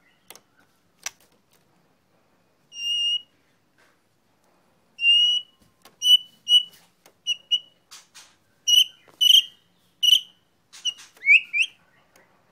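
White-rumped shama singing: one long clear whistled note about three seconds in, then a run of short whistled notes mixed with sharp clicks, ending with two quick rising whistles.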